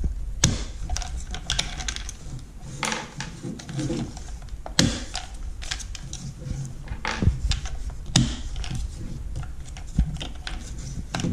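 Irregular clicks and knocks of hard plastic parts as the top valves of a Dosatron D9 dosing pump's motor are unclipped by pushing them sideways and the motor is handled.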